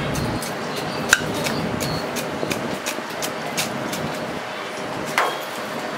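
A hand tool scoring a large block of ice to split it: a run of quick, sharp scratching ticks on the ice, with two louder clicks, about a second in and about five seconds in, over steady background noise.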